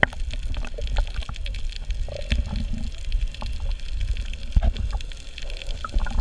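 Underwater gurgling and bubbling over a constant low rumble, with many scattered small clicks, heard through a diving camera's housing.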